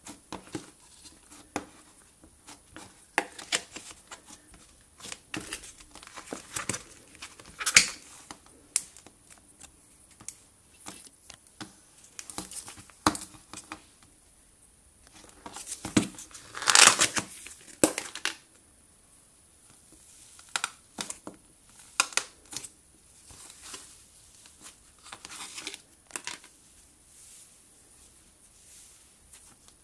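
Fluffy cloud slime kneaded and stretched by hand, giving irregular sticky crackles, pops and tearing sounds. A louder, denser run of crackles and knocks comes around the middle, where a plastic slime tub is handled.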